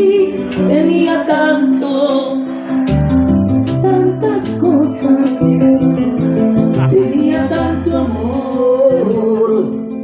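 Live band music through a PA: singing over a stepping bass line and keyboard, with hand percussion ticking steadily in time.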